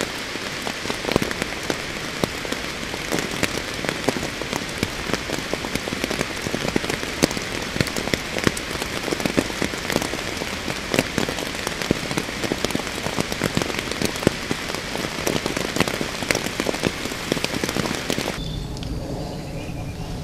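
Heavy rain falling, a dense hiss packed with the sharp ticks of individual drops striking close by. It cuts off abruptly near the end.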